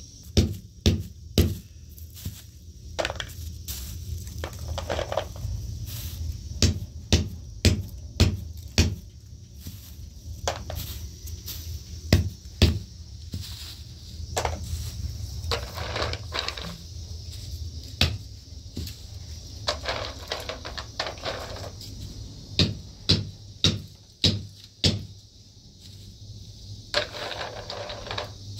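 A long wooden stick used as a pestle pounds and crushes hard pieces of dried food in a plastic bag and bowl on a cloth-covered floor. It makes sharp knocks in irregular runs, with crunching between the strokes.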